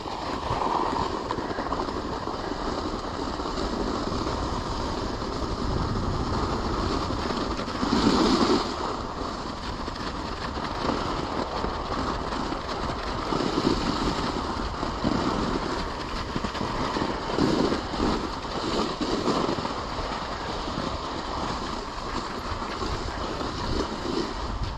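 Cooper Super Sprint dog sled's runners sliding over snow behind a three-husky team, a steady rushing noise with louder swells now and then, mixed with wind noise on the microphone.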